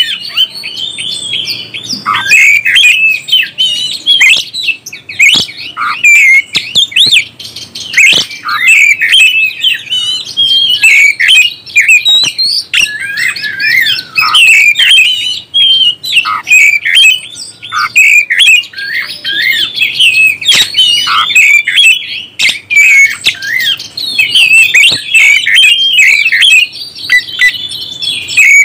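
Oriental magpie-robin (kacer) singing loudly and almost without pause: a rapid stream of varied whistled and chirped phrases that change pitch constantly, high and bright.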